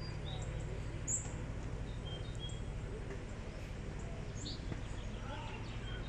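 Small birds chirping in short, scattered high calls, the sharpest about a second in, over a steady low outdoor rumble and faint distant voices.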